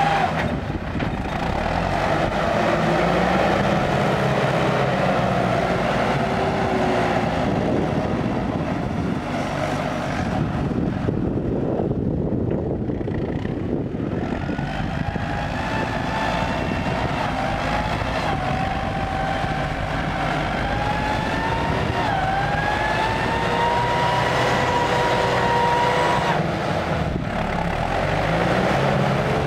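CLAAS Talos 240 tractor's diesel engine working under load as it pushes soil with a front blade. It runs steadily, and in the second half its pitch rises and drops back several times.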